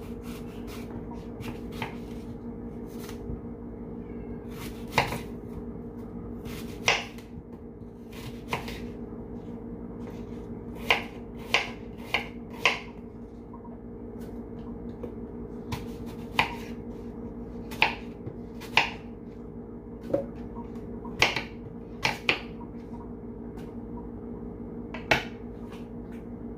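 Kitchen knife cutting a green apple on a wooden cutting board: about fifteen sharp, short knocks at irregular intervals, over a steady low hum.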